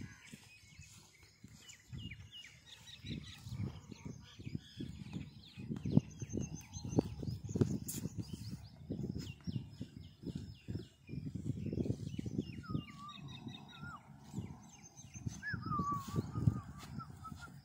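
Small birds calling outdoors: repeated high chirps and, in the second half, several wavering whistled notes. Irregular low rumbles and thumps run underneath.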